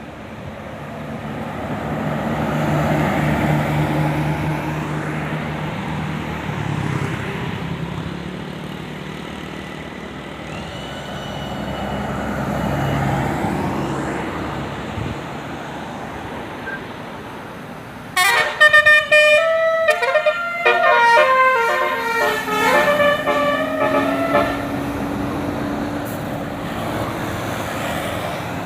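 Road traffic passing, then about eighteen seconds in a bus's telolet basuri musical air horn plays a quick tune of changing notes for about six seconds, the loudest sound, with vehicle noise continuing after it.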